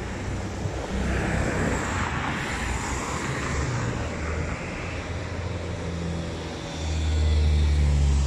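Street traffic: cars passing close by with engine hum and tyre hiss. A deeper engine rumble grows louder about seven seconds in and then cuts off abruptly.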